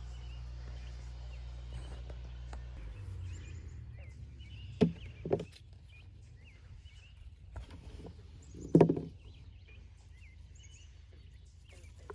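Birds chirping in short repeated calls over a steady low rumble, with a few short knocks around the middle.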